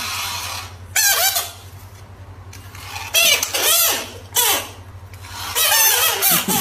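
Frogs screaming: a series of loud squeals with a wavering pitch, the open-mouthed distress or defence call a frog gives when threatened.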